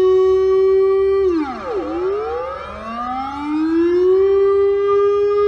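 Civil-defence warning siren wailing as part of an emergency alert. It holds a steady tone, then about a second in drops sharply in pitch with several overlapping, echoing glides. It then climbs back up and holds again.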